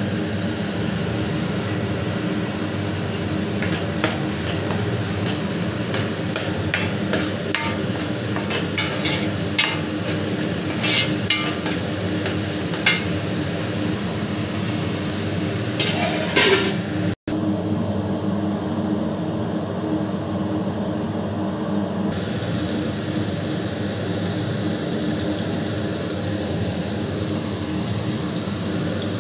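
Curry masala sizzling as it fries in a metal pan, with a spatula stirring it and knocking and scraping against the pan in the first half. The knocks stop about 17 seconds in, leaving only the steady frying sizzle.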